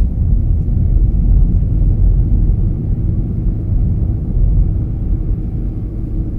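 Steady low rumble of a car driving along the road, with engine and tyre noise heard from inside the cabin.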